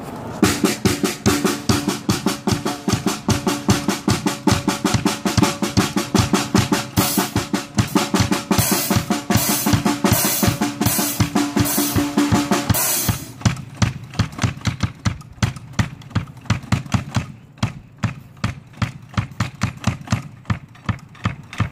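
Acoustic drum kit being played: a fast, dense stream of drum and cymbal hits for about the first thirteen seconds, then the playing thins out to sparser, spaced-out strokes.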